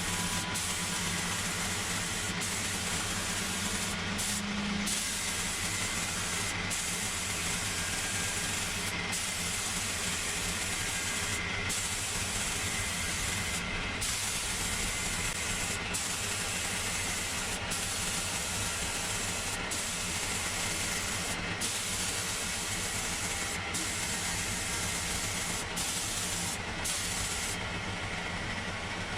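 A workshop power tool running steadily: a continuous hiss over a low hum, with brief dips in the hiss every second or two.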